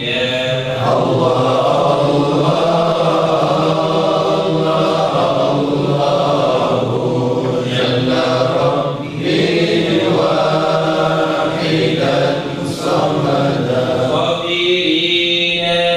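A congregation of men chanting together in unison, a Qadiri Sufi devotional chant (dhikr), sung in long held phrases with a short break about nine seconds in.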